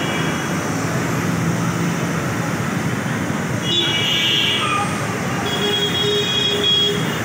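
Busy railway station ambience: a steady din of traffic and crowd noise with a low hum, broken by a brief high-pitched tone about four seconds in and a longer held tone near the end.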